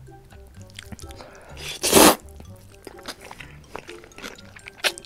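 A person loudly slurping spicy buckwheat noodles close to the microphone, one long slurp about two seconds in and a shorter one near the end, over faint background music.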